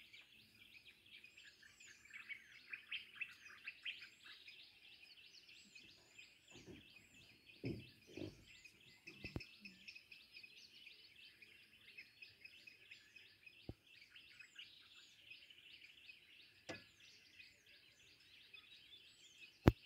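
Faint chorus of many small birds twittering, with a short high call repeated every second or so above it. A few soft low knocks sound near the middle.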